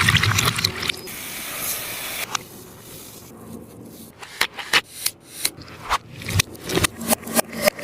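Sticky taba squishy being squeezed and handled: rubbing and a hiss at first, then a run of sharp tacky clicks and pops that come faster toward the end.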